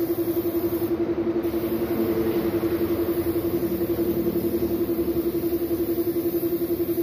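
Air compressor running with a steady, rapidly pulsing hum, under the hiss of a gravity-feed spray gun painting a motorcycle wheel matte black. The spray hiss cuts out briefly about a second in, then resumes.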